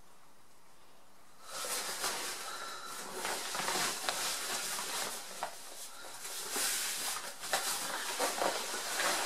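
Crinkly rustling of a Gore-Tex British Army bivvy bag as someone wriggles out of it and pushes open its drawstring hood. It starts about a second and a half in and comes and goes unevenly.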